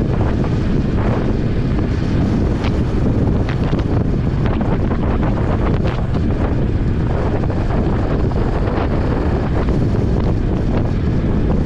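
Wind buffeting an action camera's microphone on a motorcycle ridden at highway speed: a steady, loud rush, with brief sharper gusts scattered through it.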